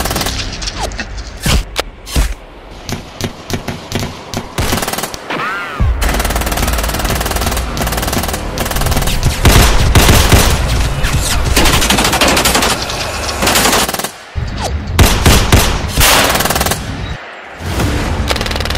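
Gunfire from rifles and a handgun: rapid strings of shots and bursts, some overlapping, broken by short pauses between volleys.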